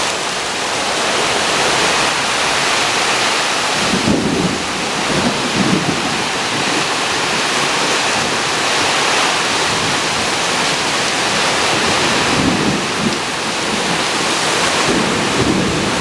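Heavy hurricane rain pouring down in a loud, steady rush of water, with a few low rumbles about four seconds in and again near the end.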